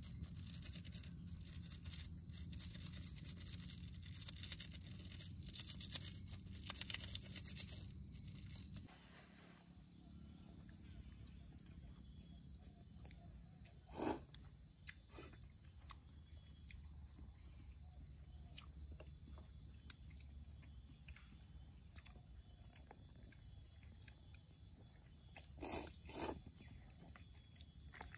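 Faint steady chirring of forest insects. For the first nine seconds or so, a campfire crackles with many small sharp clicks. Later, a few short slurps come as noodles are eaten from a pot with chopsticks: one about halfway through and two close together near the end.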